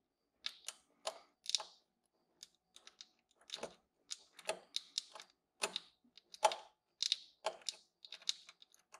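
Flat-blade screwdriver working the throttle position sensor's mounting screws on a throttle body: a string of small, irregular metal clicks and scrapes, with a short pause about two seconds in.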